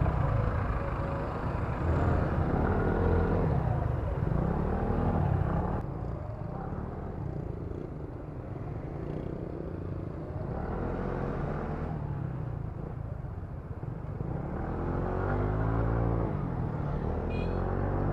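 Motorcycle engine heard while riding, through a lavalier microphone inside the rider's helmet: its pitch rises and falls several times as the bike accelerates and eases off, over a steady low wind rumble.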